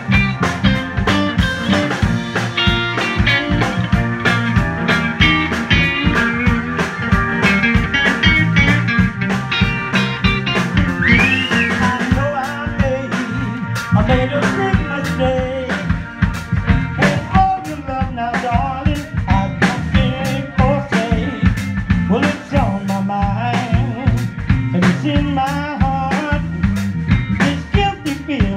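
Live band with electric guitars, bass and drum kit playing, first with a lead guitar line that bends its notes, then a man singing over the band from about twelve seconds in.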